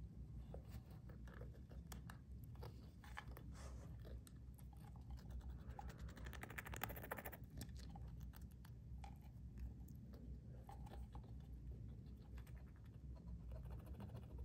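Hamster scratching and scrabbling with its claws at the edge of a gap, a faint, irregular run of small scratches and clicks, thickest about halfway through.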